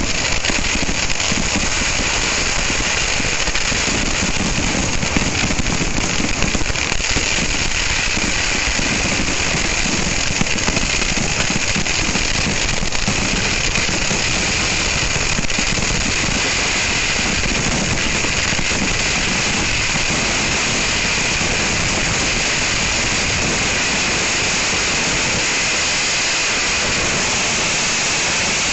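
Kerala temple fireworks (vedikkettu) going off in a continuous barrage, the bangs and crackles coming so fast that they merge into one dense, steady rush of noise. Separate cracks stand out over the first half, then it evens out into an unbroken din.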